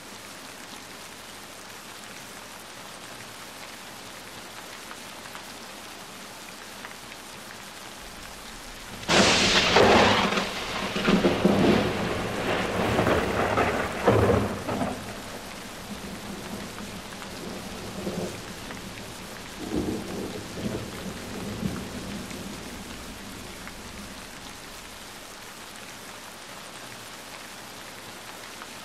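Steady rain falling, with a sharp thunderclap about nine seconds in that rolls on for several seconds, then fainter rumbles of thunder a little later.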